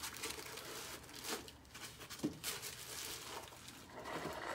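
Plastic bag crinkling and packing foam rustling as a boxed charge controller is lifted out of its cardboard box, with a few light knocks and scrapes.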